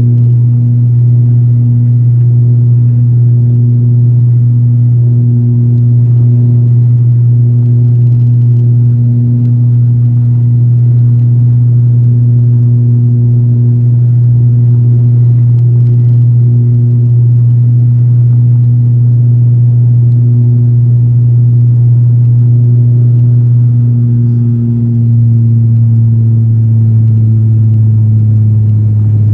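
An ATR72-600's Pratt & Whitney PW127M turboprop and six-blade propeller drone steadily in climb, heard from inside the cabin beside the engine. It is a loud, deep hum with a slow throb every second or two, and its pitch steps down slightly near the end.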